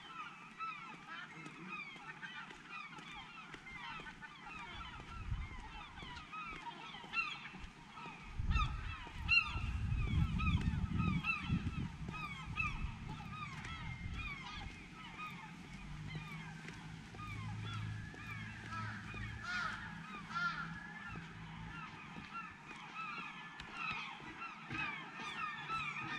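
A large flock of gulls calling, many short, falling cries overlapping without a break. A low rumble rises about a third of the way in and fades a few seconds later.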